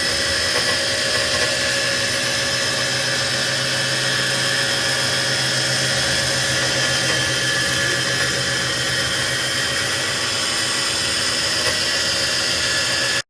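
CNC machine running steadily, a loud high-pitched hiss and whine with a lower hum through the middle, cutting off abruptly near the end.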